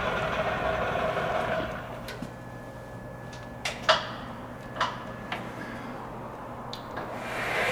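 Monarch EE toolroom lathe running, then winding down over the first two seconds to a steady electric hum. Several sharp clicks and clunks follow as the speed-range controls are shifted, and the lathe speeds back up near the end.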